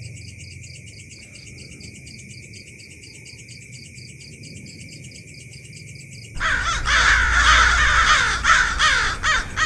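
Steady high insect trilling at night, with a faster pulsing chirp above it. About six seconds in, a sudden, much louder burst of harsh, rapidly repeated bird-like calls takes over.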